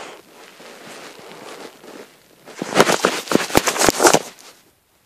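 Close rubbing and crackling of a cat's fur against the phone's microphone: faint at first, then a loud cluster of crackles from about halfway through that stops suddenly shortly before the end.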